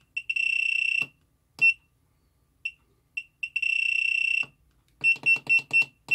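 Sealody SSA60 soldering station's key beeper sounding as its down button is pressed to lower the set temperature. A few short beeps are followed by two long beeps of about a second each, one near the start and one past the middle. Near the end comes a quick run of short beeps, about four a second.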